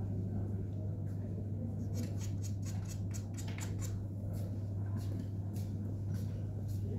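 Steady low electrical hum, with a quick run of light ticks and scrapes for a second or two in the middle.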